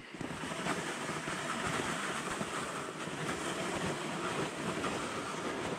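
Plastic jet sled being towed over a packed snow trail: a steady scraping hiss.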